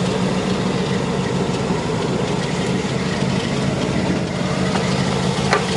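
1973 Corvette's 454 LS4 big-block V8 idling steadily, sounding healthy.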